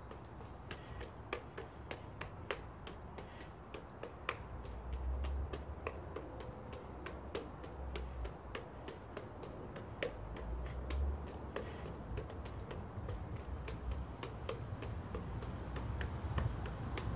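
Juggling clubs smacking into the hands at each catch of a five-club pattern: a steady run of sharp clicks, about three to four a second, over a faint low rumble.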